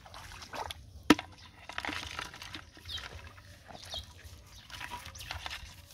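Water splashing and dripping off a mesh fish trap as it is lifted out of a shallow creek, with one sharp click about a second in and a few faint high chirps.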